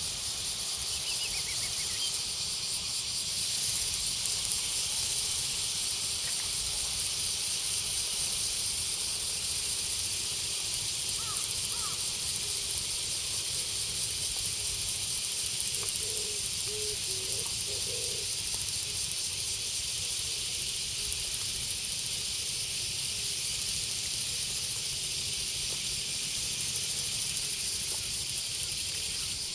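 Steady high-pitched hiss of outdoor ambience, with a few brief calls from birds, around a third and again a little past halfway through.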